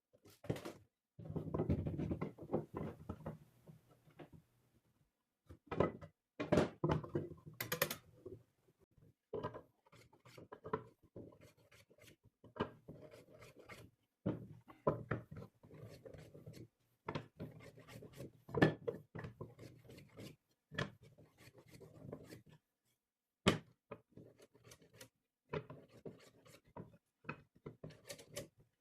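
Wooden parts being worked by hand: short rubbing and scraping strokes on wood mixed with irregular light knocks and clicks.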